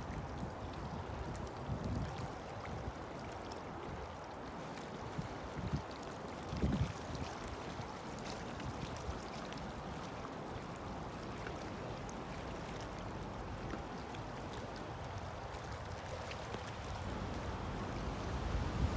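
Steady wind and water noise in strong wind, with a couple of brief low gusts buffeting the microphone.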